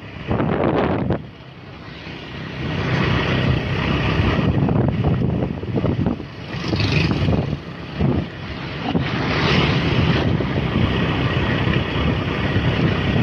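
Road traffic going by, motorbikes and cars, their engine and tyre noise swelling and fading as each one passes, with wind rumbling on the microphone.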